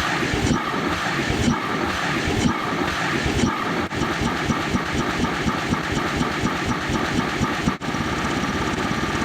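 Dense, layered mix of stacked sound effects that starts suddenly, with a mechanical, engine-like din and a regular beat about once a second.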